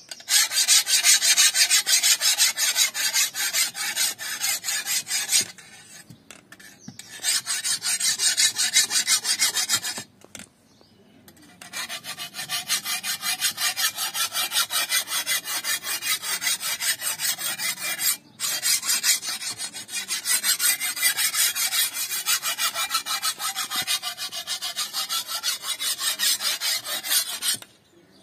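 Hand file scraping rapidly back and forth along the edge of a steel great sword blade, sharpening it, in quick strokes that stop briefly a few times.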